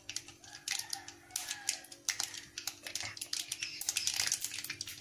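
Mustard seeds spluttering in hot oil in a metal kadai on a gas burner: many small sharp pops and crackles that come thicker toward the end, over a steady low hum.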